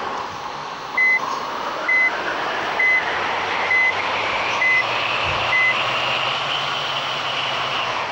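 An electronic warning beeper sounds six short, high beeps about one a second, over steady vehicle noise. A whine rises in pitch during the beeps and then holds steady.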